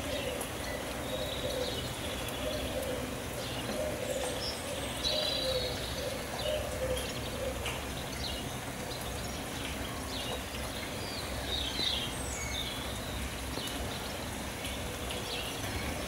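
Birdsong: a dove cooing in low, repeated phrases through the first half, while small songbirds chirp and trill throughout.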